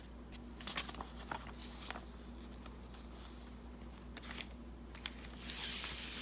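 Paper and card handled by hand: light rustling and a few soft taps, with a longer sliding rustle near the end.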